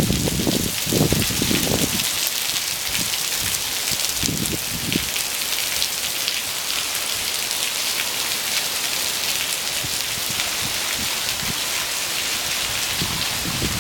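Sudden heavy downpour falling steadily, a dense, even hiss of rain. A few low, muffled surges rise under it in the first two seconds and again around four seconds in.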